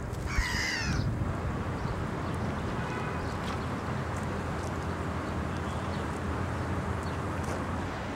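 A single harsh gull call about half a second in, its pitch bending down and up, then a steady outdoor rumble of wind noise.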